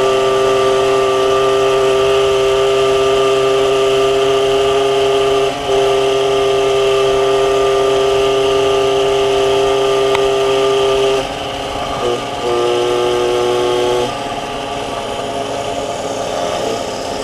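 MBK 51 moped's 50 cc two-stroke single-cylinder engine running under way at a steady high speed, with a short dip about five and a half seconds in. About eleven seconds in the engine note drops off, cuts briefly and comes back at a steady speed for two seconds, then eases off.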